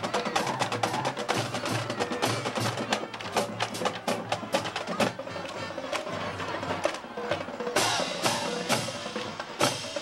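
Percussion playing at a football game: a steady stream of quick, sharp drum and wood-block-like strikes with some held tones, and a louder rush of noise from about eight seconds in.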